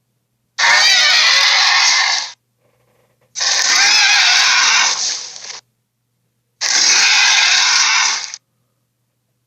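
Three harsh, drawn-out roars of the Sharptooth dinosaur sound effect, each about two seconds long, with short silent gaps between them.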